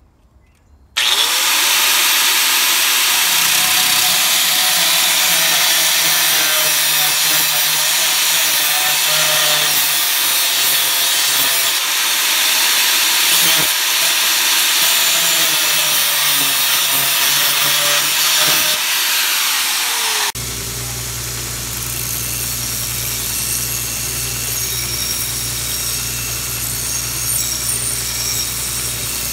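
DeWalt angle grinder starting about a second in and cutting through 3/8-inch steel rebar with a cut-off wheel, a loud steady whine whose pitch dips and recovers as the wheel bites. About 20 seconds in it gives way to a bench-mounted grinding wheel running steadily with a low hum while a cut rebar end is ground against it.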